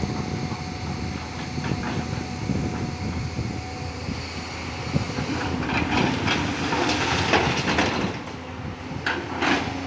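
Tata Hitachi 200 excavator working, its diesel engine running steadily under continual clattering and scraping that is busiest in the middle and latter part.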